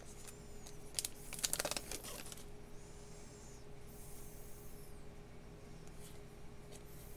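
A trading card pack's wrapper being torn and crinkled, with sharp crackles over the first two and a half seconds, then softer rustling as the cards are handled.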